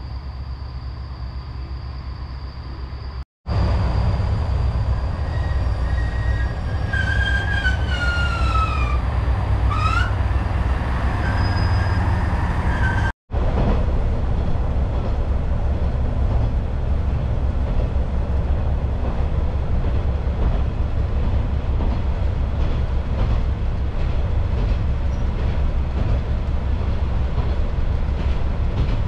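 Local diesel railcar running along the line, heard from inside the carriage: a steady low rumble of engine and wheels on rail. In the middle stretch a high wheel squeal slides down in pitch and then back up, the sound of the wheels grinding through a curve.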